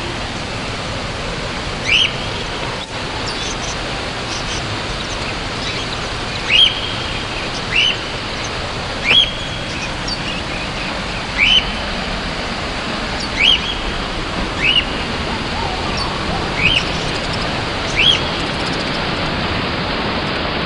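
Waterfall rushing steadily down a rocky gorge. Over it, a bird repeats a short, sharp, upward-sweeping chirp about nine times, every one to two seconds; the chirps are the loudest sounds.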